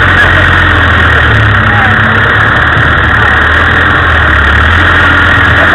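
Land Rover engine running loud and steady as the vehicle drives off-road, its low note stepping about a second in and again near the end.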